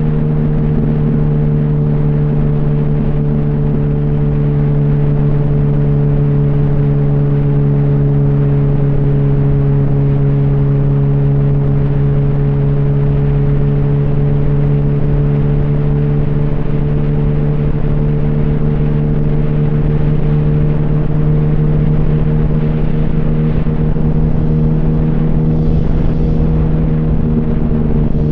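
Yamaha R1 (RN12) 998 cc inline-four running through an open, de-baffled exhaust, held at steady revs with only a slight dip and recovery in pitch.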